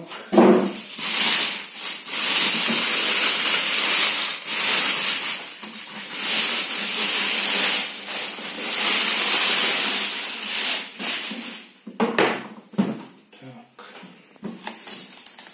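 A thin plastic bag rustling and crinkling steadily as it is pulled and worked off a metal range hood, then a few short knocks near the end as the bare hood is handled.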